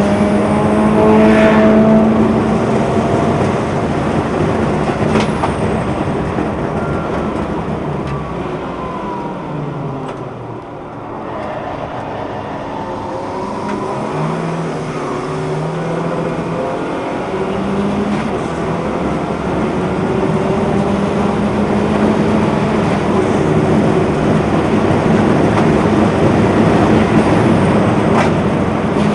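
Track car's engine heard from inside the car at speed on a circuit, revving hard and changing up through the gears; the revs fall away for a corner about ten seconds in, then climb again in steps as it accelerates out.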